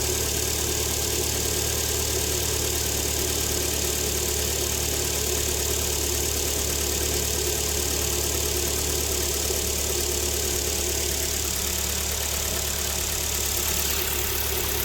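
Freshly rebuilt Kia Sportage G4KD 2.0-litre four-cylinder engine idling steadily. It runs quietly and evenly with no knock; the scored cylinders have been resleeved with new pistons and fitted with larger piston clearances.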